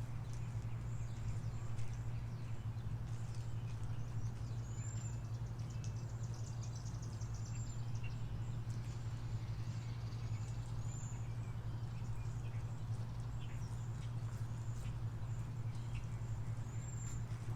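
Birds chirping: short high calls repeating every few seconds among faint twittering, over a steady low hum.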